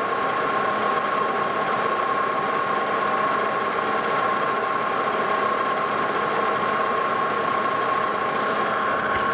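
Metal lathe running with a steady high whine while a center drill in the tailstock cuts a center hole in the spinning workpiece.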